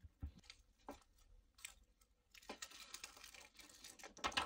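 Plastic protective liner being peeled off a sheet of adhesive on a phone frame. A few faint taps and rubs come first, then a crackling, crinkling rustle for the last two seconds or so, loudest just before the end.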